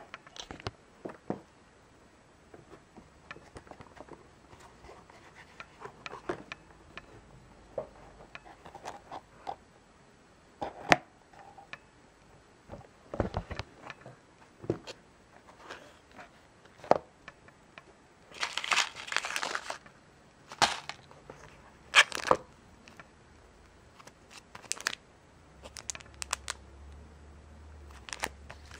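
Packaging handled by hand: a small cardboard box and plastic-wrapped packets being lifted and shifted about in a padded case, with scattered taps and clicks and bursts of plastic crinkling. The longest crinkling comes about two-thirds of the way through.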